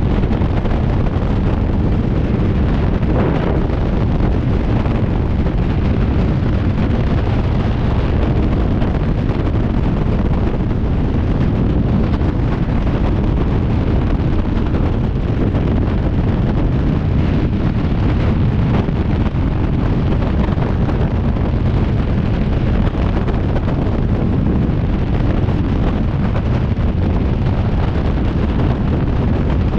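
Loud, steady roar of freefall wind buffeting the camera microphone during a skydive, unbroken throughout.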